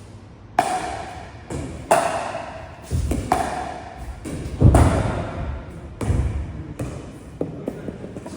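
Pickleball rally: paddles striking a hollow plastic pickleball with a sharp ringing pock about every second and a half, five main hits in all, with lighter ticks of the ball between them.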